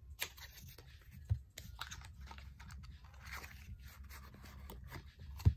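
A deck of tarot cards being handled and shuffled: papery rustling and light clicks of card stock, with a soft thump about a second in and a louder one near the end.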